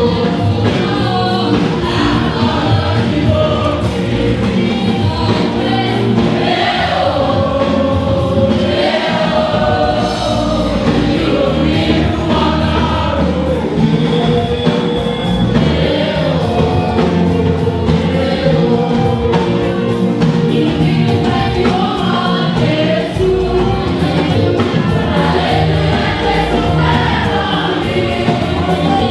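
Church choir singing a gospel hymn with instrumental backing and a steady beat.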